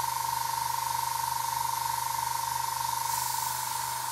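Airbrush hissing as it sprays black paint onto model landing-gear wheel hubs, with a brief stronger burst of spray a little after three seconds in, over a steady high-pitched whine.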